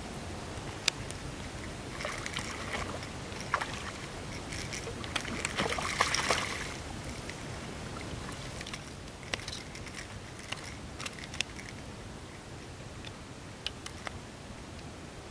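A hooked catfish splashing and thrashing in shallow water as it is hauled ashore, loudest about six seconds in, with scattered sharp taps and clicks.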